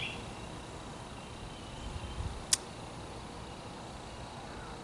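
Quiet outdoor ambience with a low rumble and a faint bird call near the middle, broken by one sharp click about two and a half seconds in.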